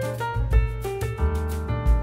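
Background music: a jazzy tune with a piano melody over bass and a steady beat.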